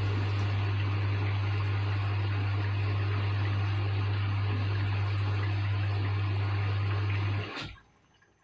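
Washing machine water running with a strong steady electrical hum, like its drain pump or fill valve, cutting off abruptly about seven and a half seconds in, leaving faint drips.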